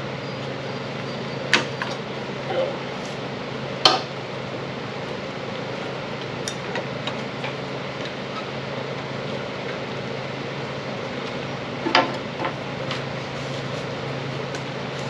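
A cooling fan whirring steadily with a low hum. Over it come a few sharp metallic clinks of sprayer parts being handled: about a second and a half in, at four seconds, and near twelve seconds.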